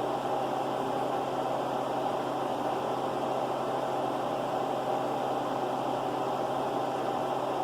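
A steady, unchanging mechanical hum with hiss, with no starts, stops or knocks.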